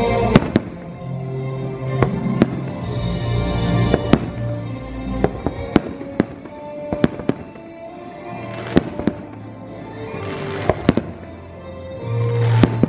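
Aerial fireworks shells bursting in about a dozen sharp bangs at irregular intervals. The show's music soundtrack plays underneath, its bass notes heaviest at the start and near the end.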